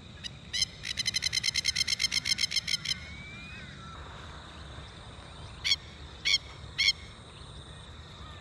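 Masked lapwings giving their rapid, harsh chattering alarm call: a fast run of about eight sharp notes a second, then three single calls a few seconds later. The birder reads it as the lapwings warning off nearby ibis, as birds that might have chicks.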